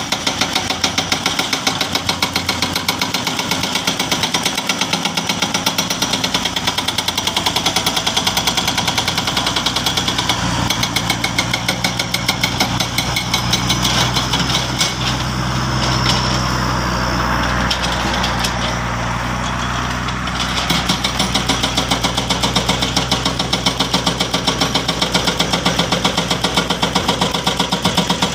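Heavy diesel engine of earthmoving machinery running with a fast, regular pulsing clatter. From about 14 to 20 seconds the pulsing eases into a deeper, steadier drone, then resumes.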